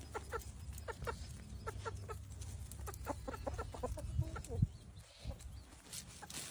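Several hens clucking, short calls one after another, with a dull knock about four and a half seconds in.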